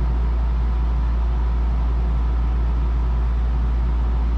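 Steady low mechanical hum with no distinct clicks or knocks.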